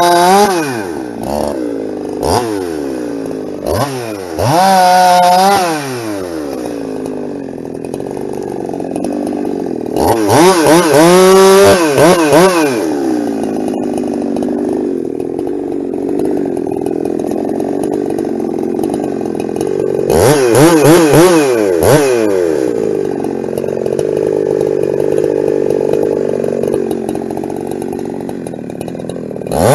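Ported Husqvarna 372 two-stroke chainsaw revving hard in quick bursts, then running long stretches at a steady, lower pitch under load as it cuts through firewood.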